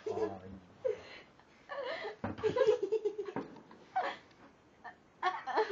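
People laughing in short bursts, with brief wordless exclamations, and a couple of knocks from the phone being grabbed and handled.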